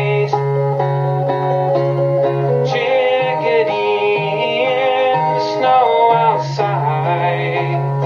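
A man singing a folk song to his own acoustic guitar, which is strummed and picked steadily underneath the voice.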